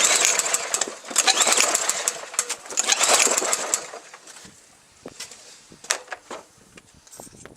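Three pulls on the recoil starter cord of a Honda-clone lawn mower engine, each a rasping whirr of about a second, without the engine catching, followed by a few faint clicks. The owner puts the failure to start down to a carburettor problem, a fuel leak he takes for a stuck float.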